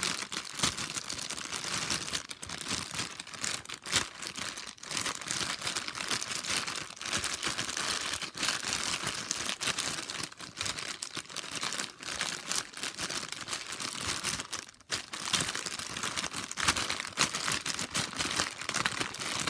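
Plastic bag crinkling and crackling without pause as a Rubik's cube is turned inside it.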